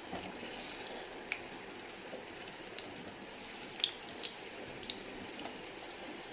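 Whole peeled potatoes frying in hot vegetable oil in a steel kadai: a steady low sizzle with scattered crackling pops as more potatoes are laid into the oil.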